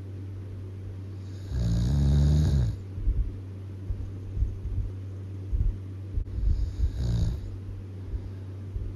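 Really loud snoring: one long snore about a second and a half in, and a shorter one about seven seconds in, over a steady low hum.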